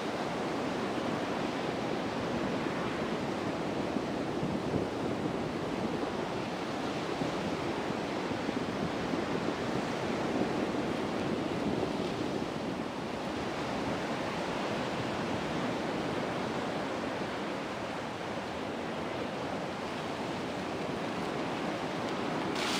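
Steady rushing of wind and breaking surf, swelling and easing slightly, with wind buffeting the microphone.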